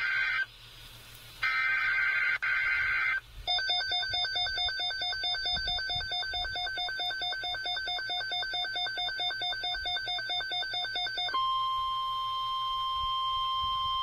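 NOAA Weather Radio alert tones from an American Red Cross-branded weather radio. The end of one burst of screeching SAME header data tones is followed by another burst about a second and a half in. Then a fast-pulsing electronic alarm beeps for about eight seconds, and the steady 1050 Hz attention tone sounds, announcing an incoming warning message.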